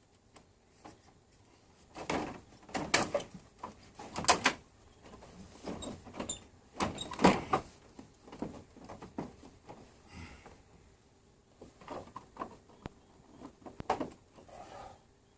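Handling noises: a series of knocks, clatters and short scrapes in two groups, with quiet gaps between them.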